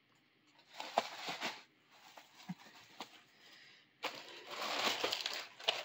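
Clear plastic bags around plush toys crinkling and rustling as the toys are handled in a cardboard box. A short burst comes about a second in, a few faint ticks follow, and a louder, continuous crinkling starts about four seconds in.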